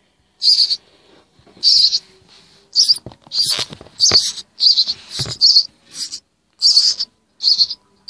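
Hand-reared nestling birds begging for food: about a dozen short, high, rasping calls in quick succession. A few soft knocks come near the middle.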